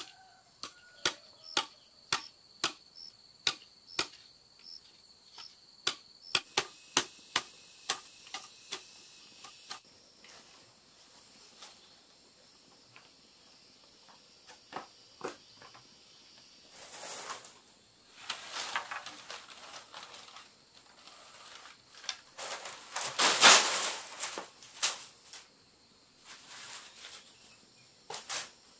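Sharp, regular knocks, about two a second, as bamboo is struck and chopped, over a steady high cricket-like insect trill. Later, longer clattering of bamboo tubes being handled and set down, loudest about two-thirds of the way through.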